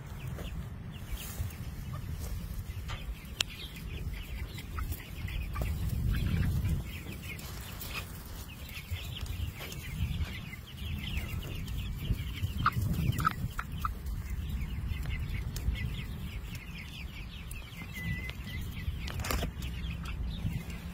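A flock of young Crazy Cackle Zombie chickens clucking and cheeping, with many short high chirps overlapping, over a steady low rumble. A single sharp knock comes near the end.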